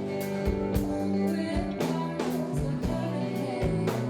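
Rock music: a band playing, with drum hits at a steady beat under sustained guitar chords.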